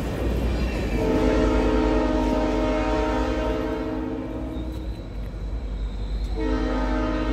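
Diesel locomotive's multi-chime air horn sounding a chord in two blasts, a long one starting about a second in and another starting near the end, over the low rumble of the train.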